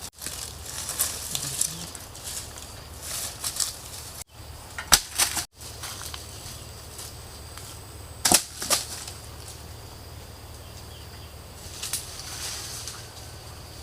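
Campfire of rain-damp wood crackling, with scattered sharp pops that are loudest about five seconds in and again just past eight seconds.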